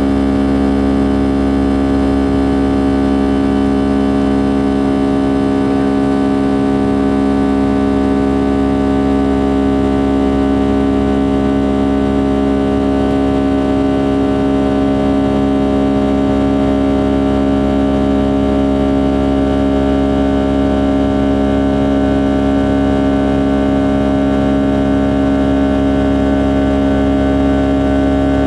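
Rolls-Royce RB211-535 turbofan of a Boeing 757-200 heard from inside the cabin during the climb-out after takeoff: a loud, steady drone with several steady humming tones layered over a low rumble.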